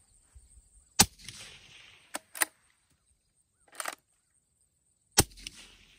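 Two suppressed shots from a bolt-action rifle, about four seconds apart. Each crack is followed by a short fading hiss as cleaning liquid sprays out of the wet suppressor. Between the shots the bolt is worked with a few metal clicks.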